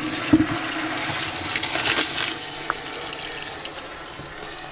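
Hot pasta water pouring from a pot through a colander into a steel caravan sink, with the cold tap running alongside to cool the boiling water going down the drain. The splashing gradually eases off toward the end.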